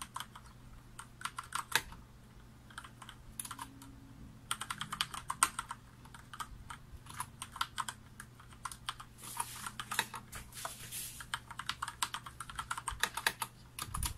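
Typing on a Mad Catz S.T.R.I.K.E. TE mechanical keyboard with Cherry MX Brown switches: quick runs of key clacks broken by short pauses.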